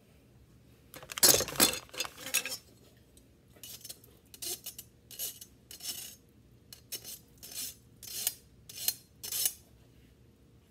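Metal mesh strainer clattering against a stainless steel saucepan as drained macaroni is tipped back into the pot. A run of short, sharp metallic rattles follows, about one and a half a second, as the last of the pasta is knocked out.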